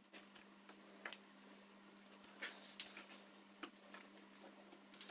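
Faint, irregular small metallic clicks and ticks as a hex key is fitted into and turned in the height-adjustment screw of a quick change tool post holder, over a faint steady hum.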